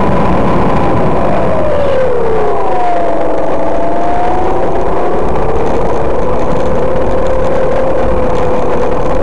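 Radio-controlled T-28D Trojan model airplane's motor and propeller heard from on board, its pitch dipping a couple of seconds in, then climbing back and holding steady as the plane manoeuvres. Heavy wind rush on the microphone runs underneath.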